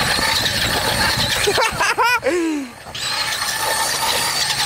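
Small electric RC truggy driving fast: a high motor whine over the rattle of its tyres on brick paving. About two seconds in a person gives a short yelp that falls in pitch. Near the end the motor holds a steadier high whine as the car runs over metal tread plate.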